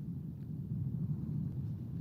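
Wind buffeting the outdoor nest camera's microphone: a steady low rumble.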